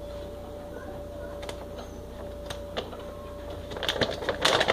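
Plastic pouch of shake powder being handled: a few light clicks, then a burst of crinkling and rustling near the end, over a faint steady hum.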